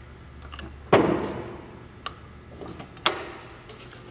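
Metal clanks at the headstock of a large Stanko engine lathe: a sharp clank about a second in, a light click, then another clank about three seconds in, each ringing briefly.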